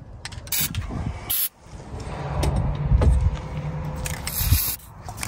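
Aerosol can of white lithium grease sprayed in short hissing bursts onto the convertible top's pivot points: two quick bursts in the first second and a half and a longer one about four and a half seconds in. A low rumble swells in the middle.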